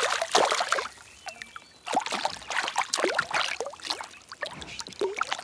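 Pond water splashing and dripping close by as a caught trout is let go: irregular small splashes, loudest in the first second, a short lull, then more splashes and drips.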